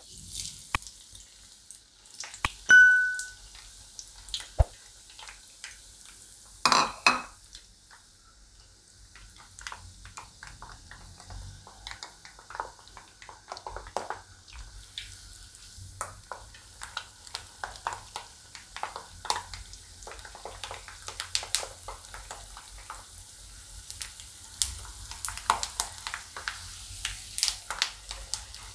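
Raw peanuts deep-frying in hot oil in a steel mesh strainer, sizzling and crackling steadily, with the crackles growing denser over the second half. A few sharp knocks come in the first seven seconds, one of them ringing briefly.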